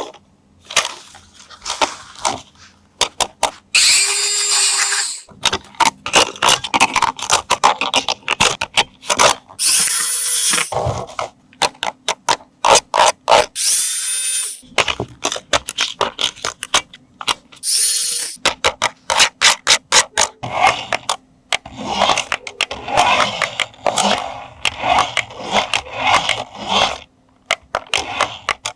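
Plastic toy parts and packaging being handled: many quick clicks and scrapes. Four times, a small electric motor whirs in short bursts of about a second each.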